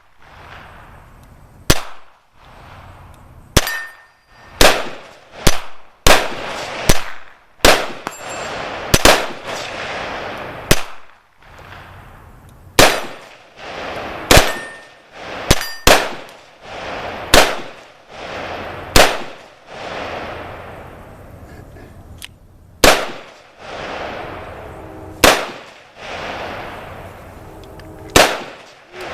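Gunfire on a shooting range: about twenty sharp shots at irregular intervals, some in quick pairs, each trailing off over a second or so. After a couple of the shots a faint ring sounds, as from a hit steel target.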